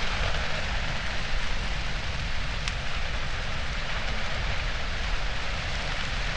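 Burning dry grass: a steady dense crackle and hiss with a low rumble beneath.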